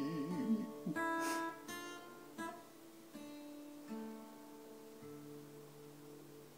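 Acoustic guitar strummed a few times, then its final chord left ringing and slowly fading away as the song ends.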